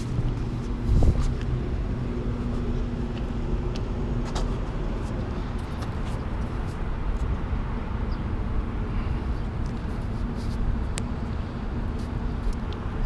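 Steady low rumble of city background noise on a rooftop, with a constant low hum and a few faint clicks.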